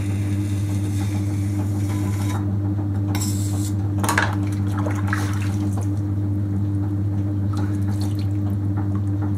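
Steady electric hum of a running potter's wheel, with water splashing and dripping several times between about two and five and a half seconds in as a potter's sponge is dipped and squeezed.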